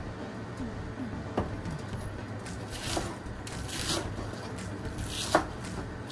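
A broad-bladed knife cutting and shredding iceberg lettuce on a wooden cutting board: scattered crisp cuts and knocks of the blade on the wood, the sharpest knock near the end.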